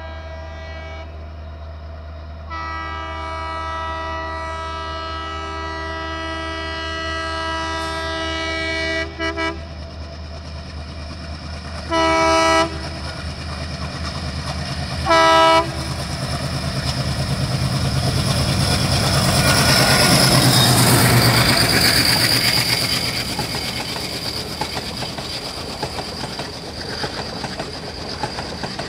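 Diesel locomotive horn (an Indian Railways WDM3A): one long blast of about seven seconds, then two short blasts. The express then runs through at speed, its wheels clattering over the rail joints, loudest about twenty seconds in and then fading.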